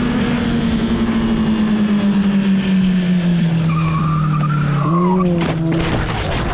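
Motorcycle engine running with its pitch falling steadily as the bike slows into a curve, then a wavering tyre squeal as the tyre skids, followed about five and a half seconds in by a cluster of knocks and scraping as the motorcycle goes down.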